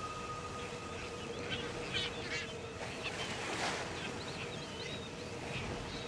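Seabirds giving short squeaky and honking calls over the wash of surf, with a faint held note of background music.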